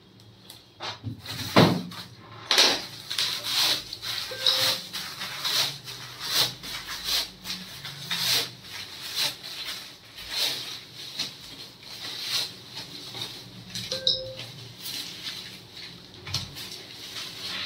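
Bubble wrap and a plastic anti-static bag crinkling and rustling as they are unwrapped by hand, with a single knock a little under two seconds in.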